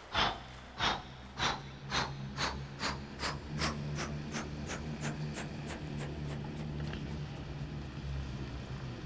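Steam locomotive chuffing as it pulls away, the puffs speeding up from under two a second to about four a second and growing fainter, over a low steady rumble.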